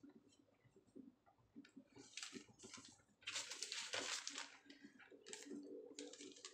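Raw yeast donut dough going into hot frying oil: a burst of sizzling about three seconds in, lasting about a second, with shorter sizzles before and after.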